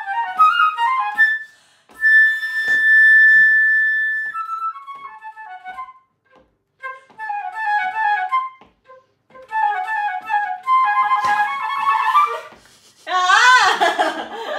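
Flute warm-up finger exercises: quick runs of short notes, a long held high note about two seconds in, then more fast scale passages broken by short pauses. Near the end the playing stops and the player laughs.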